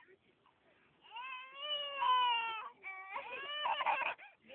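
A toddler's voice: two long drawn-out cries, the first starting about a second in and falling slightly in pitch, the second following about three seconds in.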